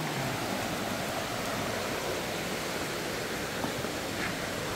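Shallow river rushing steadily over rocks and riffles.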